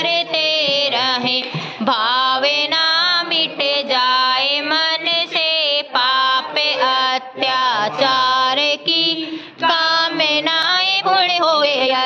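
A woman's voice singing a Hindu devotional chant, melodic and continuous, with short breaks between phrases.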